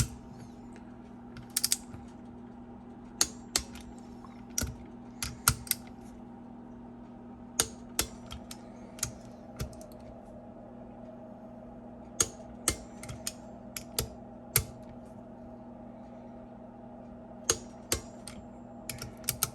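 Sharp metallic clicks of a torque wrench and its ratchet, coming singly and in quick clusters at irregular intervals, as rocker arm bolts on a cylinder head are tightened to 22 foot-pounds.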